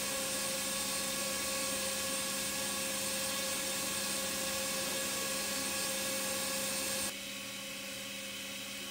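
Friction stir welding machine running: a steady machine whine and hiss with several held tones, dropping to a quieter steady hum about seven seconds in.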